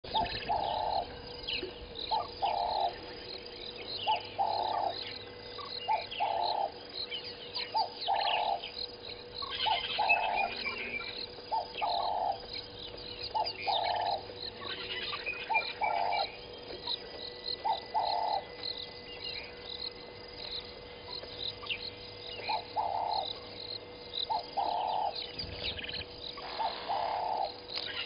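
Wild birds calling: a low note repeated about once a second, pausing for a few seconds midway, over a busy mix of higher chirps and twitters. A faint steady hum runs underneath.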